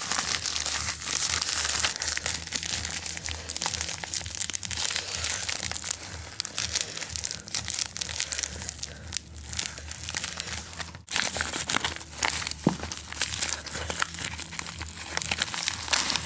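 Plastic packaging of new RAM modules crinkling and crackling as it is opened and handled, with many small irregular clicks and rustles.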